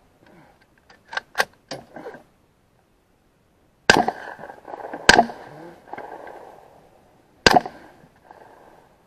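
Gunshots: a quick run of four quieter cracks, then three loud shots, the second about a second after the first and the third about two seconds later, each trailing off in an echo.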